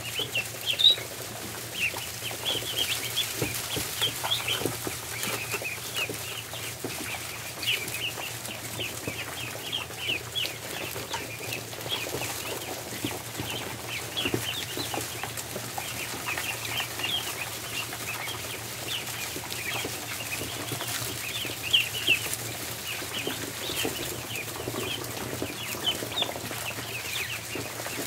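A group of ducklings peeping continuously, many short high chirps overlapping, with scattered soft taps and clicks among them.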